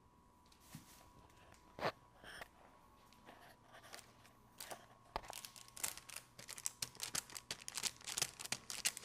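Parchment paper and a plastic bag crinkling and rustling as hands handle them, with one sharp knock a little under two seconds in. The rustling gets busier in the second half.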